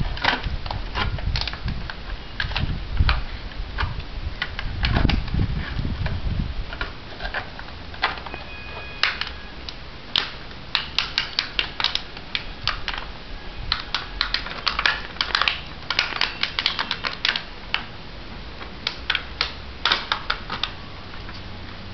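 Puppy gnawing a small hard plastic object, making irregular sharp clicks and crackles that come thickest in the second half. A low rumble runs under the first six seconds or so.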